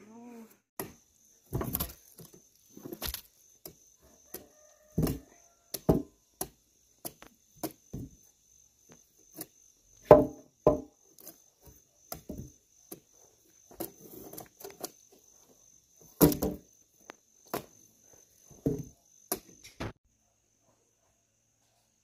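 Irregular knocks and thuds, about a dozen spread unevenly, with a faint steady high insect trill behind them that stops near the end.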